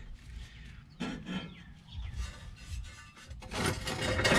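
Metal rubbing and scraping with light knocks as the rear section of a Dodge Ram's two-piece driveshaft is lifted by hand off a steel jack stand; the scraping grows louder near the end.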